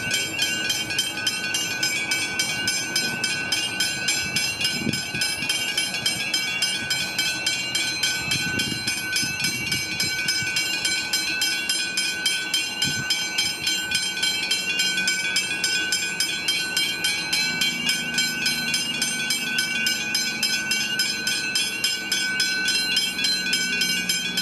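Railway level-crossing hybrid bells ringing with rapid, even strikes at a fixed pitch, sounding the warning while the crossing is closed for an approaching train. A low engine drone joins in during the second half.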